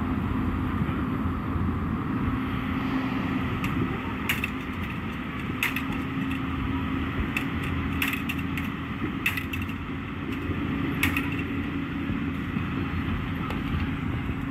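Diesel engine of a heavy earthmoving machine running steadily, a low rumble with a constant hum. Several sharp cracks and knocks come through the middle.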